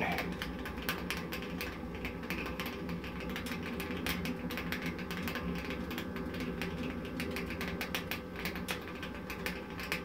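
Homemade wood pellet boiler running: a steady hum from its small forced-draft fan under dense, irregular crackling from the boiling inside.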